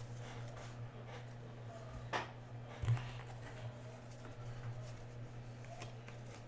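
Hockey trading cards being handled and flipped through by hand: faint rustling with two light taps about two and three seconds in, over a steady low hum.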